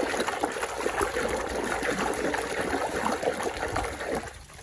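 Water running and splashing as a muddy toy car is rinsed clean, a steady wash of noise with small irregular splashes that dies away shortly before the end.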